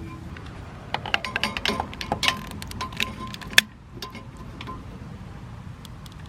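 Metal clinking and clicking as the water heater's gas tubing and fittings are handled: a quick run of light clinks for about two and a half seconds, ending in one sharp click, over a steady low hum.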